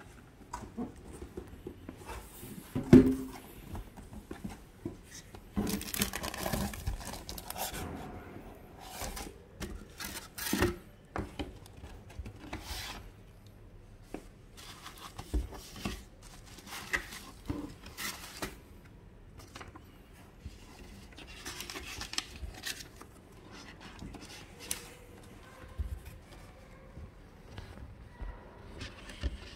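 Packaging handled by hand: cardboard, plastic sleeves, bubble wrap and paper rustling and crinkling, with scattered light knocks against the box. A sharp thump about three seconds in is the loudest sound.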